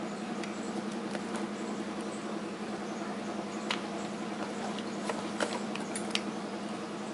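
Light scattered clicks and scratching of hands handling a plastic smoke alarm and its packaging, over a steady low hum. The clicks come in the second half, several close together.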